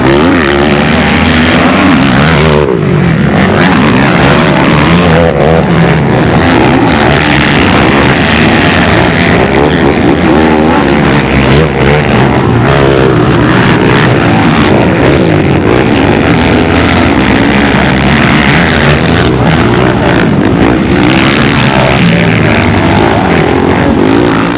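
Racing ATV engines revving up and down, several at once, loud and continuous.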